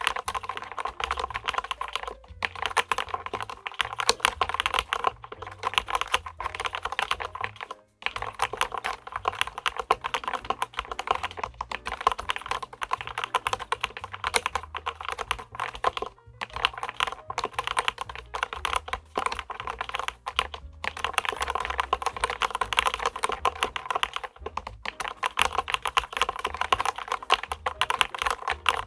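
Fast, continuous typing on a LEOPOLD FC660MBT mechanical keyboard, dense keystroke clicks with a few short pauses.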